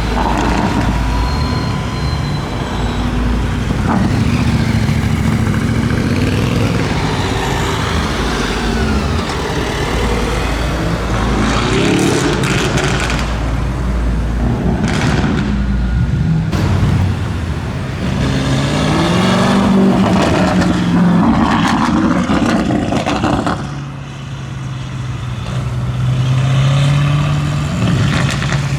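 Lamborghini Urus twin-turbo V8 running through a Novitec aftermarket exhaust, revving up and down several times. A run of sharp exhaust crackles and pops comes about halfway through, and the engine settles to a lower, steadier note near the end.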